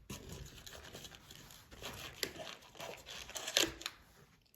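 Crinkling and rustling of handled wrapping material, with scattered sharp clicks; loudest about three and a half seconds in.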